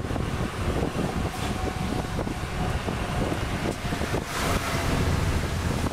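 Road noise of a car driving, heard from inside it: a steady rumble of engine and tyres with wind noise, swelling a little about four seconds in.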